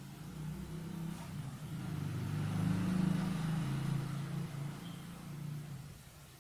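Low engine hum of a passing motor vehicle, swelling to its loudest about halfway through and fading away.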